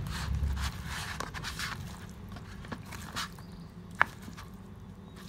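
Mayonnaise-dressed salad leaves being tossed by hand in a plastic tub: wet squishing and rustling, with light taps against the container and one sharper tap about four seconds in.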